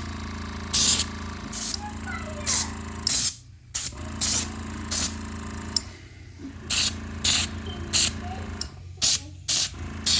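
Repeated short spritzes of a spray bottle misting protectant onto a suede leather sheath, about one or two a second with brief pauses, over a steady low hum.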